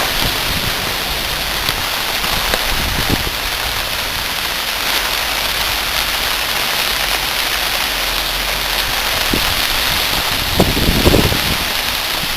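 Rain falling steadily, an even hiss, with a few short low rumbles of wind on the microphone near the end.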